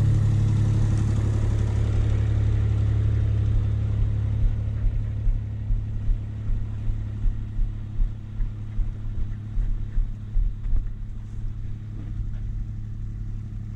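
Kubota utility vehicle's engine running steadily at low revs, with regular soft pulses about twice a second from about four seconds in.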